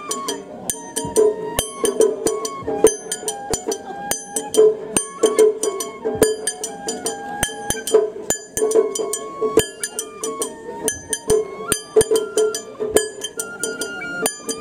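Japanese shrine-festival music (matsuri-bayashi): a high melody line in held, stepped notes over quick, ringing metallic percussion strikes, about three to four a second.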